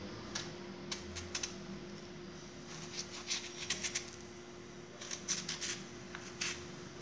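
Kitchen knife cutting into the firm flesh of a peeled raw mango to take it off the stone: short crisp cuts coming in small irregular clusters, over a faint steady hum.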